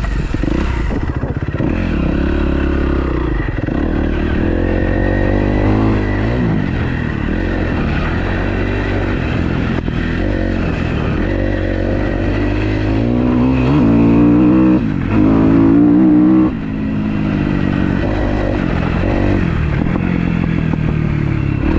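Freshly rebuilt 2012 Kawasaki KX250F four-stroke single-cylinder motocross engine under way, its revs rising and falling with the throttle. It gets louder and higher-pitched about two-thirds of the way through, with a brief break in the middle of that stretch, then drops off sharply.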